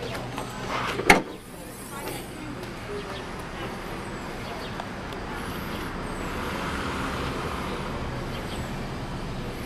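Car hood being opened: one sharp knock about a second in, then a steady low hum.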